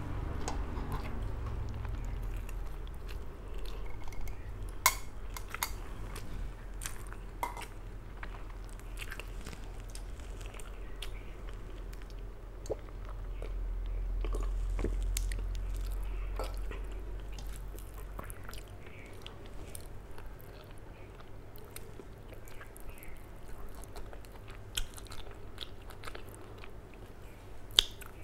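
Close-miked chewing and wet mouth sounds of a person eating rice and curry by hand, with scattered sharp clicks. Midway there are drinking sounds from a steel tumbler.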